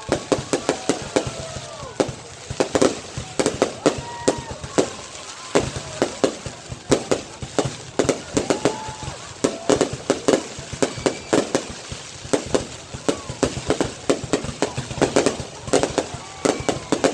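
Fireworks going off in a dense, unbroken barrage of sharp bangs and crackles, several a second.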